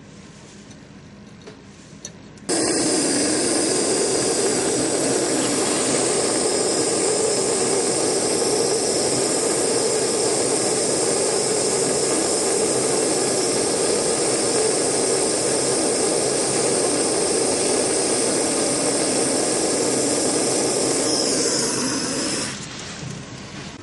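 Jeweller's soldering torch on flame No. 1 hissing steadily as it melts a small piece of gold into a ball on a soldering block. The flame comes on suddenly about two and a half seconds in and cuts off a second or two before the end.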